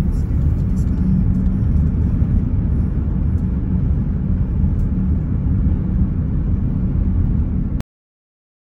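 Loud, steady low rumble of a car on the move. It starts suddenly and cuts off abruptly near the end.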